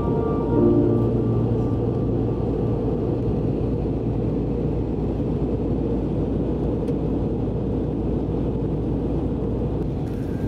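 Steady low rumble inside an airliner cabin in flight: engine and airflow noise heard from a window seat.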